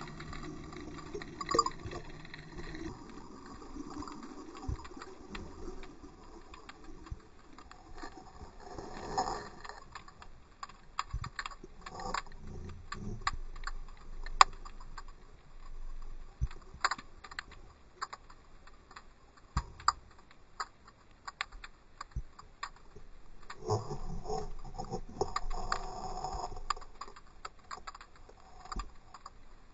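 Underwater sound heard through a GoPro's waterproof housing: scattered sharp clicks and ticks over a faint hiss, with a couple of louder stretches of rushing noise.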